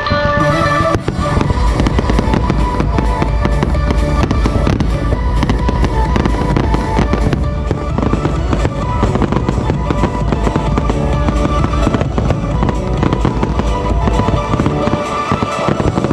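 Fireworks bursting and crackling in a dense, continuous barrage, heard over music with a steady bass.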